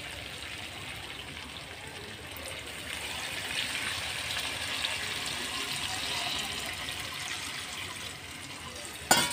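Water poured from a steel bowl into a hot karahi of fried chicken masala, a steady hissing pour that swells around the middle and eases off. A sharp knock comes near the end.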